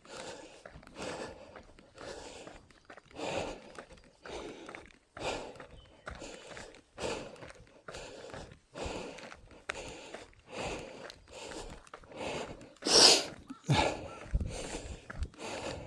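Heavy, rhythmic breathing of someone running uphill on a mountain trail, about one breath a second, with footsteps. One louder, sharper breath near the end.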